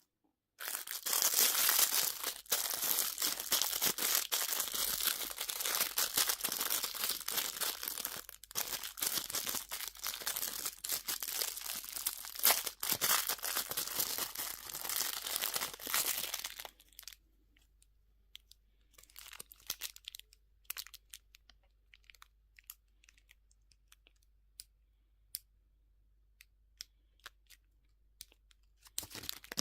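Candy wrapper being torn open and crinkled in a dense run of crackling for about sixteen seconds, then only scattered small crinkles and clicks.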